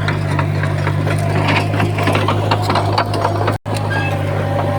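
Komatsu D31P bulldozer's diesel engine running steadily, with many sharp clicks and rattles over it. The sound cuts out for an instant about three and a half seconds in, then carries on the same.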